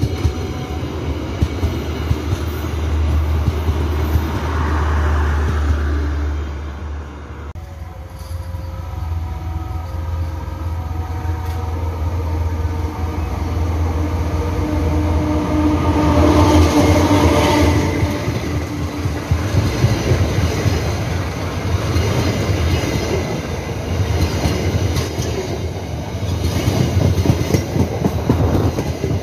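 Passenger coaches rolling past on the track with a steady low rumble; after a break about seven and a half seconds in, a diesel locomotive approaches with its engine running and grows louder, and its coaches then pass close by with the wheels clattering on the rails.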